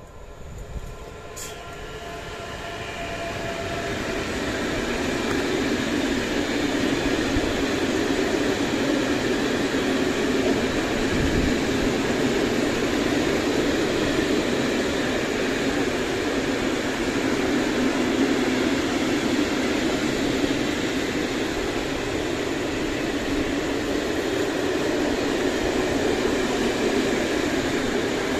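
Electric-hauled freight train of open wagons rolling past, its rumble growing over the first few seconds as the locomotive nears, then holding steady as the wagons go by.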